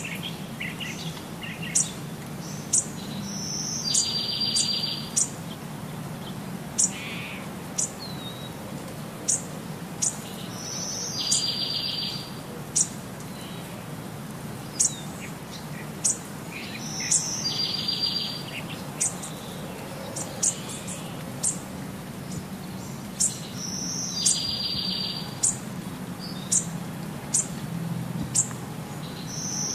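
Birds chirping: short, high chirps about once a second, with a buzzy trilled call that comes back about every seven seconds, over a steady low hum.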